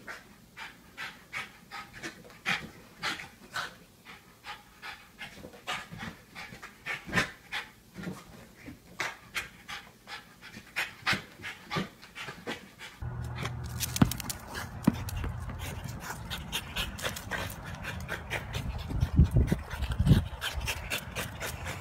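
French bulldog panting in short, quick breaths, about two a second. About two-thirds of the way through, a steady low background noise comes in under the panting.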